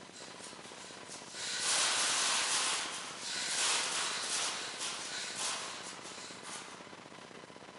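Coins jingling and rattling in collection cups, in irregular bursts over several seconds.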